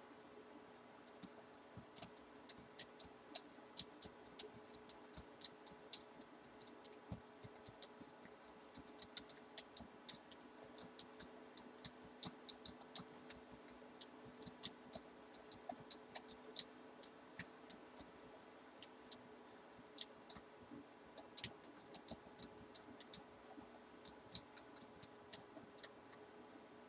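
Faint, irregular clicking at a computer, at times several clicks a second, over a faint steady hum.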